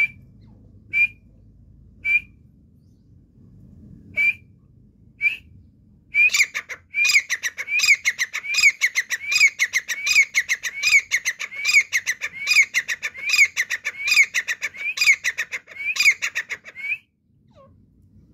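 Grey francolin (teetar) calling: a few single notes about a second apart, then from about six seconds in a loud, fast string of repeated rising-and-falling phrases, roughly one and a half a second, lasting about ten seconds before it stops abruptly.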